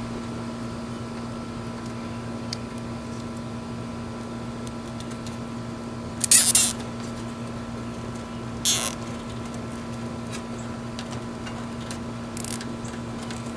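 Nylon zip ties being pulled tight through their ratchets, in short rasping zips: a longer one about six seconds in and a shorter one a couple of seconds later, over a steady hum.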